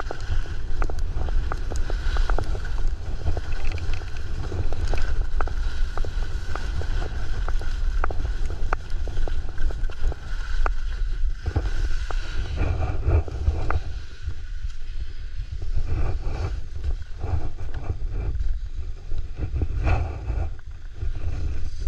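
Skis running and scraping over snow during a descent, with frequent sharp clicks and scrapes, under a heavy low rumble of wind on the GoPro's microphone.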